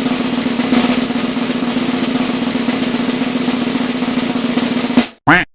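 Snare drum roll, a fast continuous rattle that cuts off about five seconds in, followed by a short sharp sound.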